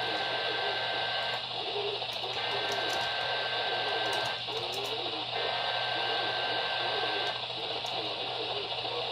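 Radio receiver on a weak, noisy signal: steady hiss and static with a faint voice buried in it. A thin high tone cuts out for about a second roughly every three seconds.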